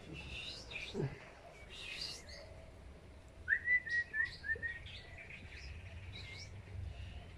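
Small birds chirping: scattered short high calls in the first two seconds, then a quick run of five or six short chirps about three and a half seconds in.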